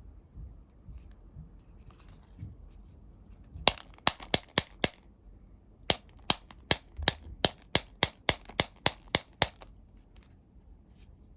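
Folded paper noise-making toy snapping in sharp clicks: a quick run of about six a little under four seconds in, then a longer, even run at about four to five a second.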